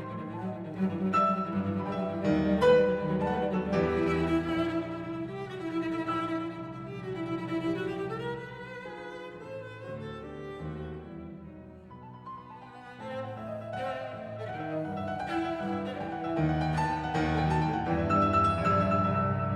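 Instrumental music with cello, violin and piano, played back through Elfton Vegas II four-way loudspeakers and picked up by room microphones. It grows quieter a little past halfway, then swells again.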